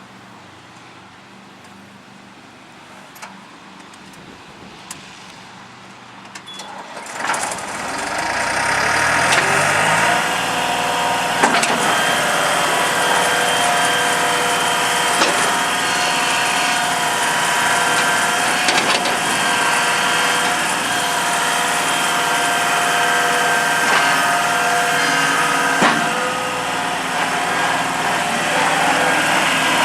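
New Holland LS180 skid steer's diesel engine starting about seven seconds in, its pitch rising over a few seconds as it comes up to speed, then running steadily.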